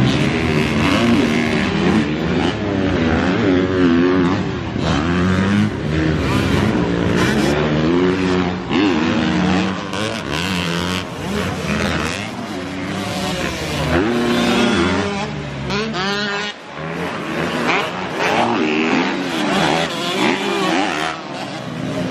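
Several small motocross dirt bikes racing, their engines revving up and down through the gears and overlapping. About fifteen seconds in, one engine's pitch climbs steeply as it accelerates hard, then the sound dips for a moment.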